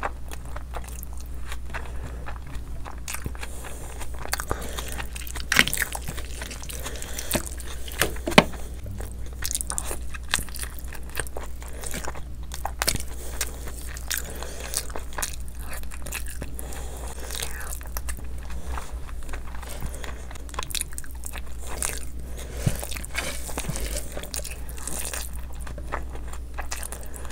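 Close-miked mouth sounds of someone eating chicken biryani by hand: wet chewing and smacking of mouthfuls of rice and chicken, with a few sharp clicks, the loudest about five and eight seconds in. A steady low hum runs underneath.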